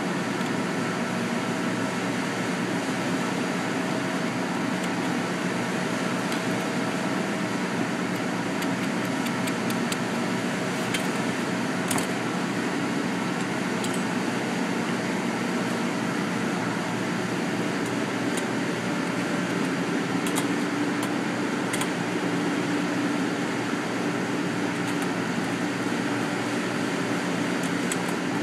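Steady machine hum with a fan-like rush, at an even level, with a few faint light ticks in the middle.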